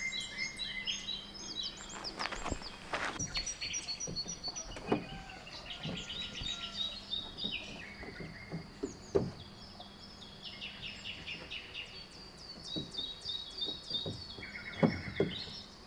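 Small birds chirping and trilling all through, with a few short knocks in between.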